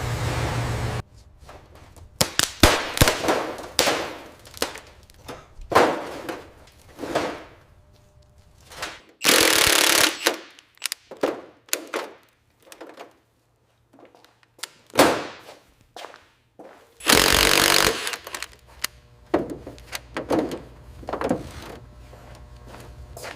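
Workshop tool work on car bodywork: a string of sharp knocks and clanks, some ringing briefly, with two short bursts of steady hiss about a second long.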